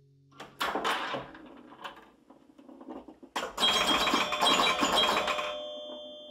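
Metallic clattering, then a sharp strike about three and a half seconds in with a rattling, bell-like ring whose tones hang on and slowly fade.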